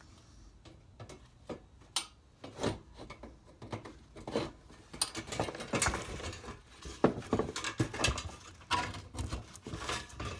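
Irregular clicks, knocks and light clanks of metal parts and tools being handled while a small old heater is taken apart for scrap. They are sparse at first and come thick and fast from about halfway.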